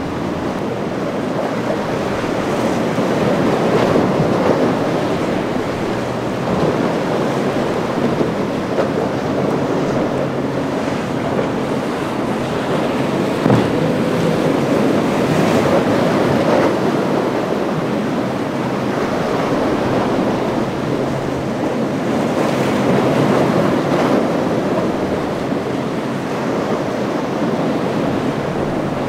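Rough surf breaking in waves, with wind buffeting the microphone; the roar swells and falls every few seconds as waves crash.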